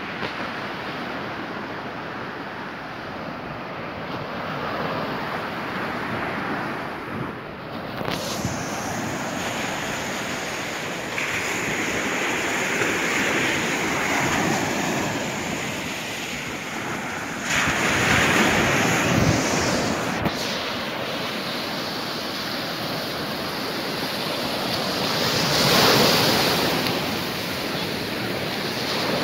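Sea surf breaking and washing up the sand, with wind on the microphone. The wash swells louder several times as waves break, the loudest near the end.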